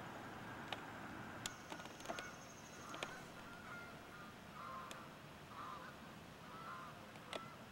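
Faint bird calls, short and repeated about once a second from about two seconds in, with a few sharp clicks over a steady background hiss.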